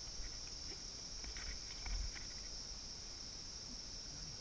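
Steady high-pitched drone of insects, with a few faint clicks and a low knock about two seconds in.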